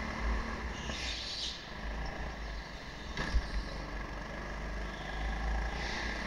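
Indoor rental go-kart running, heard from a camera mounted on the kart: a steady drone over a deep rumble, with brief hissing swells and one sharp knock about three seconds in.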